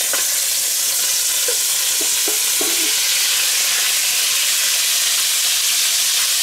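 Diced pork and bacon sizzling in hot clarified butter in a cast-iron Dutch oven as the meat is tipped in from a bowl and stirred with a wooden spatula: a steady frying hiss, with a few brief knocks about two seconds in.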